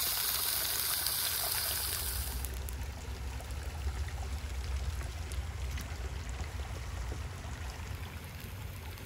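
Salmon fillet frying in hot oil in a cast-iron skillet: a steady, bright sizzle that cuts off abruptly about two and a half seconds in, leaving a quieter, lower noise with a few faint clicks.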